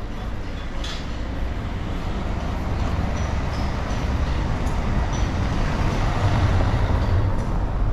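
A car driving past close by on a stone-paved street, its engine and tyre noise a steady rumble that swells as it approaches and is loudest about six seconds in.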